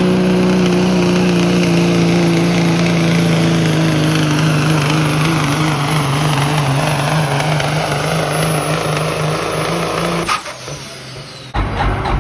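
Semi truck's diesel engine at full throttle, pulling the weight sled down the track: a loud, steady engine note that slowly falls in pitch as the sled bogs the truck down. The sound cuts off abruptly about ten seconds in, and after a short quieter gap loud low engine sound returns near the end.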